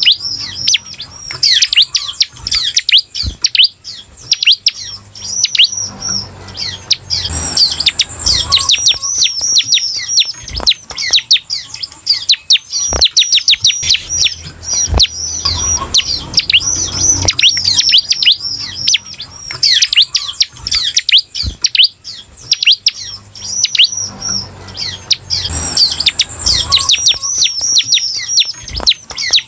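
Bar-winged prinia (ciblek) singing: long runs of quick, high, downward-sweeping chirps in rapid bursts, broken by short pauses, with a few faint knocks.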